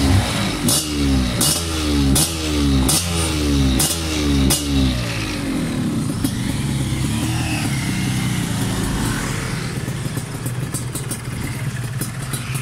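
Yamaha DT two-stroke motorcycle engine being blipped rapidly through a quick-action throttle: about seven short revs, each rising in pitch. About five seconds in it settles to a steady idle.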